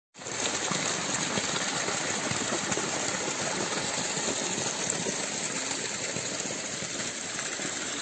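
Artificial rock waterfall pouring into a pond: a steady rush of splashing water.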